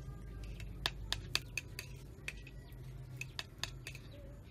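Metal spoon clinking and scraping against a ceramic plate while scooping rice: a quick run of sharp clicks in the first half and a few more near the end, over a steady low hum.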